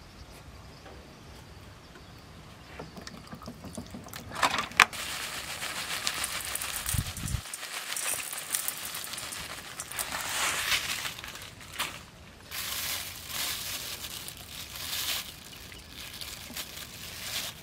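Dried chili flakes being shaken from a plastic bag into a stainless steel bowl of raw pig intestine. After a couple of sharp clicks about four seconds in, the bag's rustling and the falling flakes make a noise that swells and fades for most of the rest.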